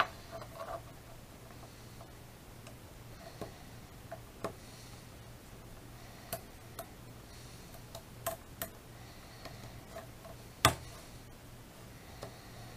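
Hobby knife cutting and scraping a plastic model kit part: faint scraping strokes with scattered sharp clicks, the loudest about two-thirds of the way in, over a steady low hum.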